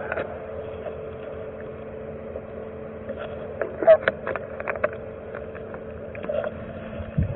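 A plastic water bottle is handled in the hands, crinkling and clicking sharply a few times around the middle. Under it runs a steady low hum.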